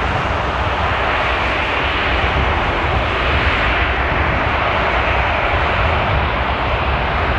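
Airbus A380's four turbofan engines running as the airliner rolls along the runway: a steady, loud rush of jet noise that neither rises nor falls.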